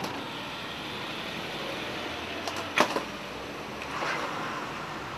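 Steady background noise with one sharp knock a little before the middle, a couple of faint clicks just before it, and a softer swell of noise about a second later.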